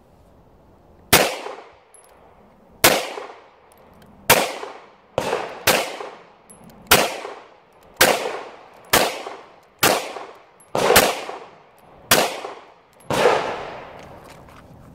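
About a dozen single pistol shots from a semi-automatic handgun, fired at a slow steady pace of roughly one a second, each followed by a short echo.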